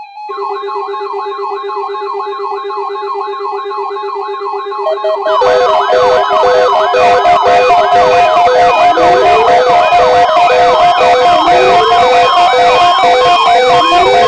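A ZoneGuard NOAA weather alert radio sounds its electronic siren alarm for a Required Weekly Test: a fast, repeating warble over a buzzing tone. About five seconds in, further pulsing and sweeping alarm tones join and it gets much louder, several alert tones sounding at once.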